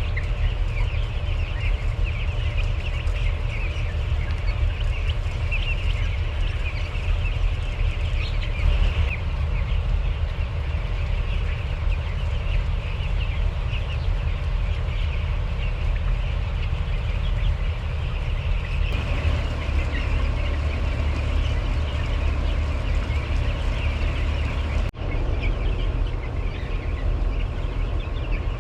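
A large flock of poultry calling all at once in a dense, continuous chatter, over a steady low machine hum such as barn ventilation fans. There is a brief cut about three-quarters of the way through.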